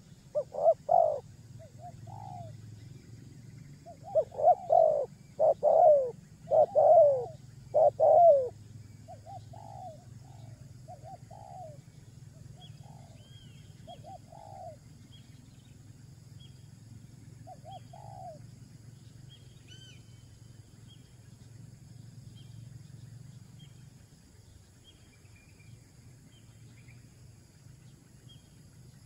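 A bird calling in low, downward-sliding cooing notes, like a pigeon or dove. Loud bursts of calls come in the first half, then softer, spaced notes, and they stop about two-thirds of the way through. Faint high chirps of small birds are heard later, over a steady low hum.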